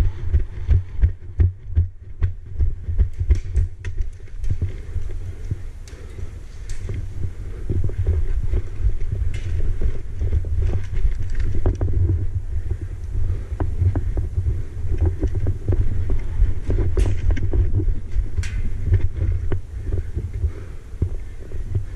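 Irregular low thudding and rumble of movement, carried through a helmet-mounted camera, with a few scattered sharp clicks.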